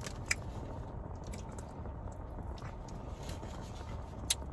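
Close-miked chewing and squishy mouth sounds of eating soft mac and cheese, with a few sharp wet clicks, the loudest near the end, over a steady low hum.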